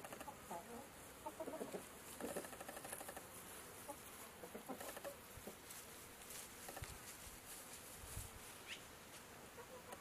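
Chickens clucking faintly in short, scattered runs, with a brief high chirp near the end.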